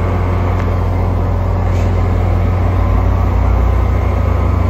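EMD GP40PH-2B diesel-electric locomotive's 16-cylinder two-stroke EMD 645 engine running as the train departs, a loud, steady low drone. It grows a little louder about three seconds in as the engine loads up.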